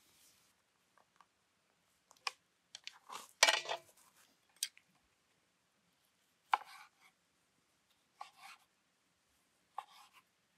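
A knife slicing through seared beef tenderloin on a wooden cutting board: three separate cuts about a second and a half apart in the second half. Before them comes a cluster of sharp clicks and knocks, the loudest about a third of the way in.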